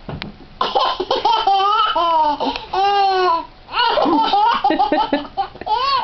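A toddler laughing hysterically in repeated high-pitched peals, with a long squealing laugh about three seconds in.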